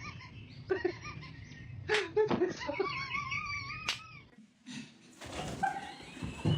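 Pet parrot vocalizing in short chattering calls and wavering whistles, with a couple of sharp clicks. There is a brief break about four seconds in, then a high wavering whistle.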